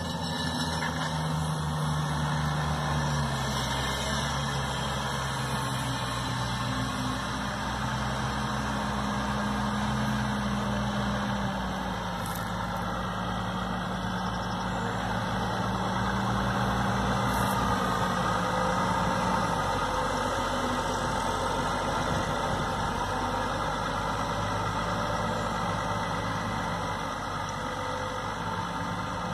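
Case MXM 120 tractor's diesel engine running as it pulls a slurry tanker and injector across grassland, the engine note shifting up and down in pitch a few times.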